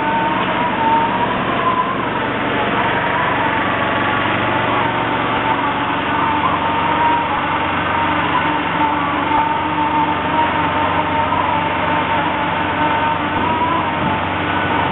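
A machine motor running steadily, with a high whine that wavers slightly in pitch over a rough, rushing noise.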